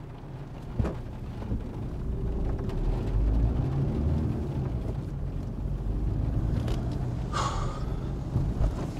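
Car engine and road rumble heard from inside the cabin, growing louder a couple of seconds in as the car moves off and drives on. A short sharp higher sound cuts in about seven seconds in.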